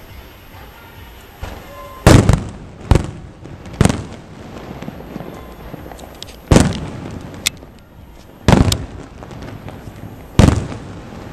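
Aerial firework shells bursting: about seven sharp bangs at irregular intervals, the first about two seconds in, each trailing off in a short echo.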